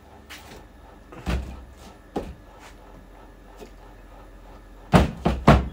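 Knocks and clunks of an aluminium V8 cylinder head being handled and set down on a workbench: a thump about a second in, a lighter knock shortly after, and a quick run of three louder knocks near the end.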